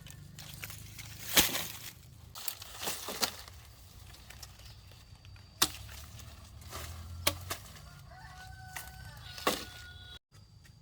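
A series of sharp knocks or strikes, about six spread over ten seconds, the loudest a little over a second in. Faint, thin, drawn-out bird calls sound in the background, mostly in the second half.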